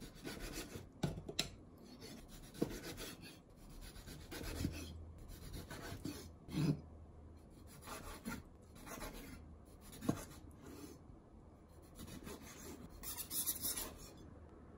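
Kitchen knife slicing seared steak on a mango-wood cutting board: the blade rasps through the meat in repeated strokes, and some cuts end in a sharp knock on the board.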